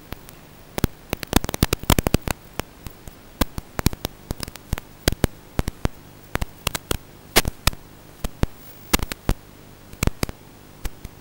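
Electrical static: irregular sharp crackling clicks, several a second in clusters, over a faint steady low hum.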